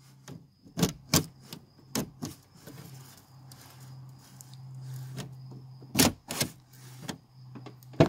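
A metal ruler tapping and scraping against the window glass and weatherstrip as it is worked down inside a Mazda Tribute's rear door to reach the latch mechanism: a series of sharp clicks, with a low steady hum swelling up in the middle.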